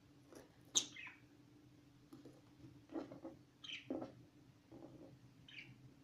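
Caged budgerigars giving a few short, high chirps, the loudest about a second in, with softer, lower sounds between them over a faint steady hum.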